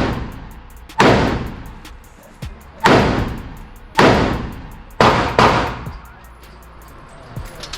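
AR-15 rifle firing five shots at uneven intervals, each with a long ringing decay, the last two in quick succession.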